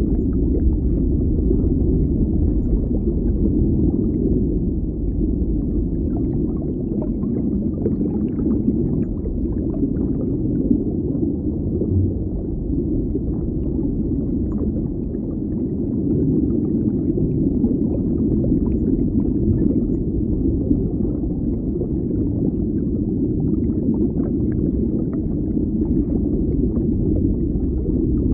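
Deep underwater ambience: a steady low rumbling wash of water, with faint scattered crackles and clicks over it.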